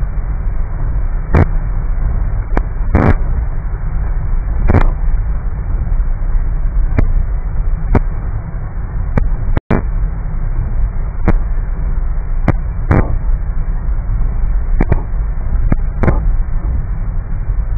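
Inside a car driving in heavy rain: a steady low rumble of road, engine and rain on the bodywork, with sharp knocks every second or two. The sound cuts out for an instant about halfway.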